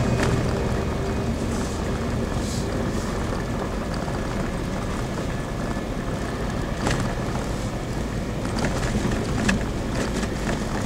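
A 4x4 vehicle driving over a rough dirt trail, heard from inside: a steady engine hum under rumbling road noise, with a few sharp knocks from the bumpy track.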